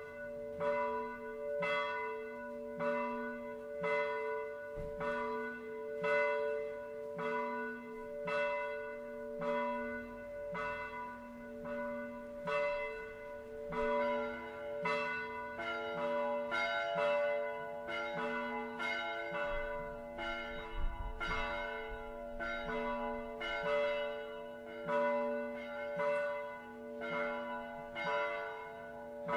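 Church bells ringing, struck a little under twice a second with long ringing tones; about halfway through a second bell of another pitch joins in.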